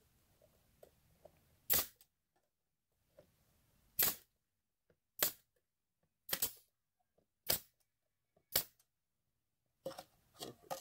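Nail gun firing into wooden boards: six sharp single shots about a second apart, one of them a quick double. Lighter clicks of the pieces being handled near the end.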